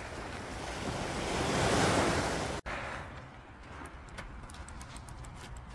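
Sea waves washing against the rocks, swelling to their loudest about two seconds in, then cut off suddenly. After that a quieter wash of sea and wind is left, with a few faint ticks.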